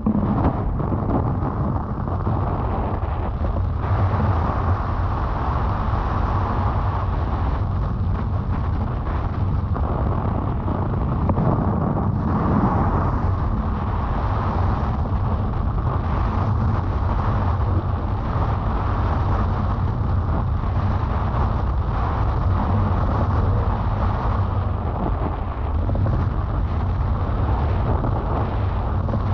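Steady wind buffeting the microphone during a windfoiling run: a continuous low rushing noise with no breaks.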